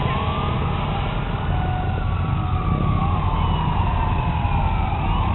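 Wailing sirens of fire trucks. Slow rising and falling sweeps from more than one siren overlap each other, over a steady low rumble.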